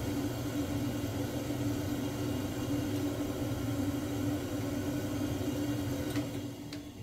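Steady mechanical hum of a gas combi boiler running, its motor giving one even tone over a low rumble. Two sharp clicks come near the end as the hum drops away.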